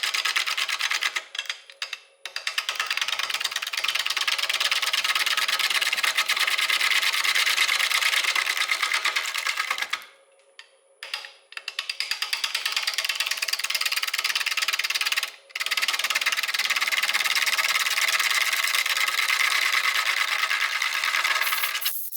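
A turning tool cutting bark and wet wood from a spinning green maple bowl blank on a lathe: a loud, dense, rapid chattering rasp. The cutting stops briefly about a second in, again for a second or two about halfway through, and for a moment about two-thirds of the way in.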